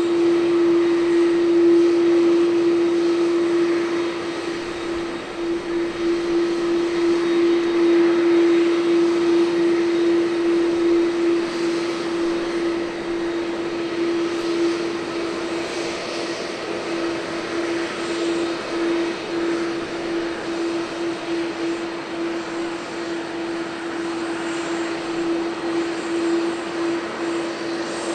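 Airbus A330-300's General Electric CF6 turbofan engines running at taxi idle: a steady jet hum with one strong, even tone over a broad hiss.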